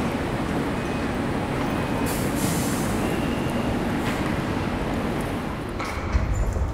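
Steady rumbling and noise of a train at a station platform, with a deeper rumble and a sharp knock about six seconds in.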